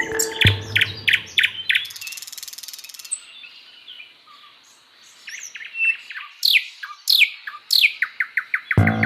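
Wild birds calling: a quick series of short notes, a high buzzy trill, then three downward-sweeping whistled calls and a fast run of short chirps. Background music fades out early on and comes back in just before the end.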